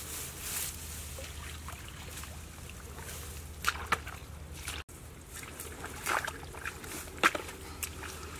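Dry grass and stalks rustling as they are pulled and trampled. After a cut about halfway through, hands slosh and splash in a shallow muddy puddle, with a few short sharp splashes.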